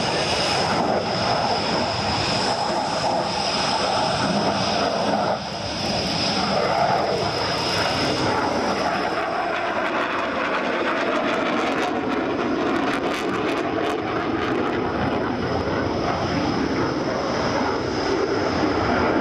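Jet engine noise from a MiG-29's twin Klimov RD-33 turbofans as the fighter flies its display, steady throughout with a thin high whine over the first half and a brief dip in level about five seconds in.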